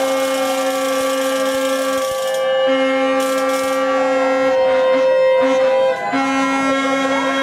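Horns blowing long, steady notes: one higher note held nearly throughout, a lower one sounding in on-off stretches of one to two seconds, with a hiss of noise over them in the first couple of seconds.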